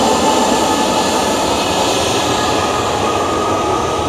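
Boeing 767-300ER jet engines at taxi power: a loud, steady rushing whine that slowly fades as the airliner taxis away.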